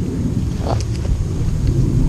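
Wind buffeting the microphone, an uneven low rumble, with a faint click or knock about two-thirds of a second in.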